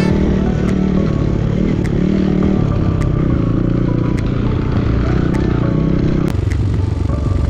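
Enduro dirt bike engine running as it rides a rough trail, with occasional sharp knocks and clatter; the engine note grows heavier about six seconds in.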